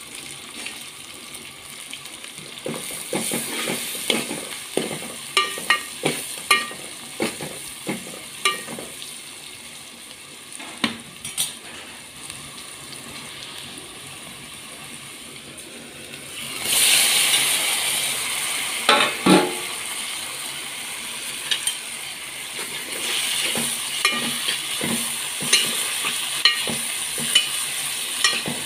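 Sliced onions and green chillies sizzling in hot oil in a metal pan, with a steel ladle clinking and scraping against the pan as it stirs. About two-thirds of the way through, the sizzle suddenly grows louder and stays up. Near the end, chopped tomatoes are stirred in with more ladle clinks.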